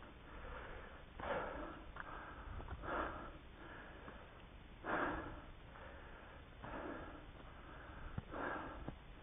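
A trail runner's heavy breathing, close to the microphone: five hard, breathy exhales about every two seconds, the loudest about halfway through.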